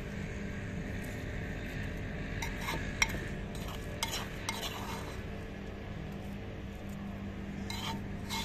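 Steel spoon scraping and clinking against the inside of a terracotta clay pot as chilli paste is scooped out, in scattered strokes with one sharper clink about three seconds in.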